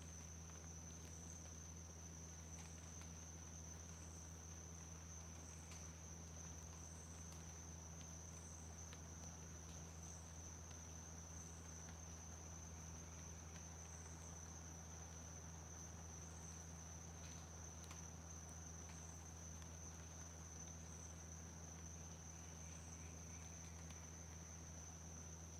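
Insects calling: one keeps up a steady high-pitched trill while another gives a short higher pulse about every second and a half, over a low steady hum.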